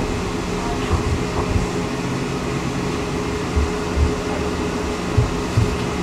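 Cabin noise of a moving city tram: a steady hum with a few fixed tones running under it, and several short low thumps scattered through it as the car rides over the track.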